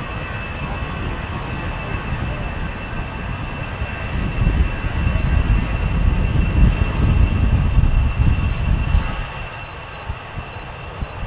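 Airbus A320 jet engines running, a steady high whine over a rushing noise, with a deeper rumble swelling about halfway through and easing off near the end.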